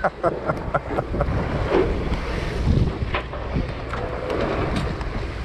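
Wind buffeting the microphone over the steady rush of sea water and a boat's running engine, with a few scattered light clicks.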